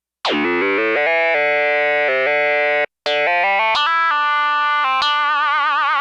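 Sequential Prophet-5 Rev 4 analog synthesizer playing an FM patch, with oscillator 2 modulating at audio rate through the Poly-Mod section, recorded dry: a bright tone rich in overtones. It plays two short runs of stepping notes separated by a brief break about three seconds in. The first run opens with a quick falling sweep, and the last note wobbles in pitch.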